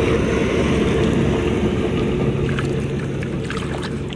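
Hands sloshing and squelching through shallow muddy water, groping in the mud for a hidden fish, with a few short splashes in the second half. A steady low rumble and hum runs underneath.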